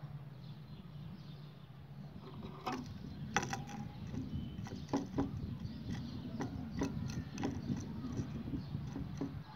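White canary pecking on the floor of its cage: an irregular scatter of short, sharp clicks and taps, starting about a third of the way in, over a low steady hum.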